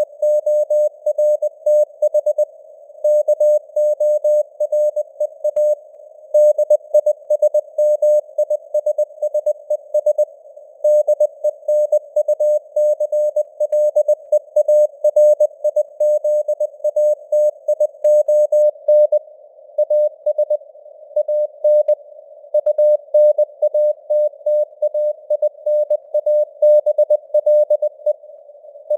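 Morse code (CW) tone keyed on and off at 20 words per minute, in dots, dashes and short pauses between words. It is a single steady tone sending news headlines, set in simulated radio band noise.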